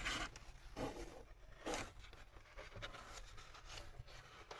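Faint rustling and scraping as engine parts and their wrapping are handled, in several short swishes about a second apart.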